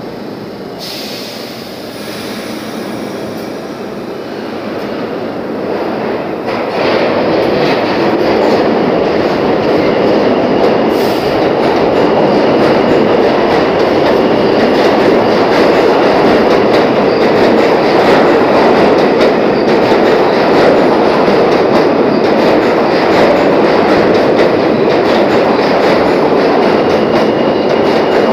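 New York City subway train pulling out of an underground station: quieter as it starts to move, it grows louder over the first several seconds and then runs loud and steady as the cars pass close by, with wheels clattering over the rail joints.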